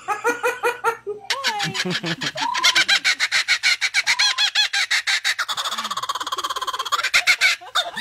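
Laughing kookaburra giving its cackling laugh, a long fast run of harsh repeated notes that breaks off near the end, with a woman laughing along. The first second is a short stretch of laughter before the call starts.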